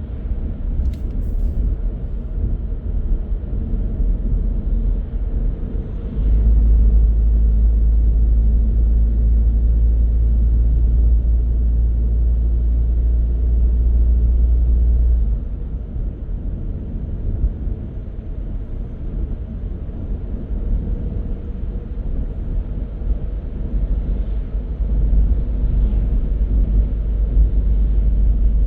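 Car driving on the road: a steady low rumble of tyres and engine that gets suddenly louder about six seconds in and eases back about nine seconds later.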